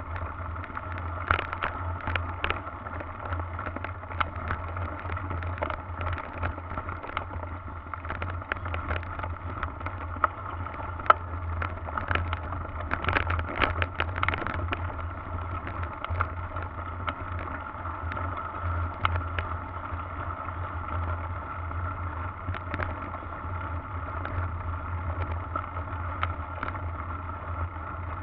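Mountain bike ridden over a rough dirt trail, heard through a handlebar-mounted camera: a steady drone with frequent knocks and rattles as the bike goes over bumps.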